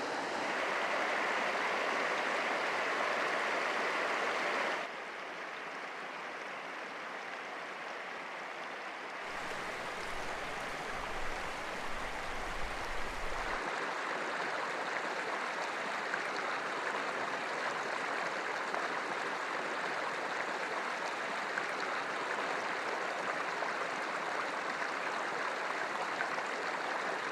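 Water of a small mountain stream rushing and splashing steadily over rocks. It drops in level about five seconds in, and a low rumble comes in for a few seconds before the rushing returns louder.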